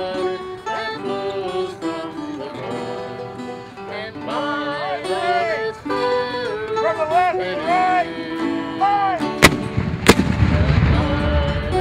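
Acoustic guitar and mandolin playing period string-band music while a man sings. About nine and a half seconds in, a muzzle-loading field cannon fires: two sharp reports under a second apart, then a low rumble that carries on under the music.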